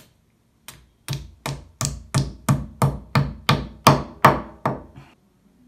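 Hammer driving a plastic wall plug into a drilled hole in the wall: about a dozen sharp blows at a steady pace of about three a second, loudest about four seconds in.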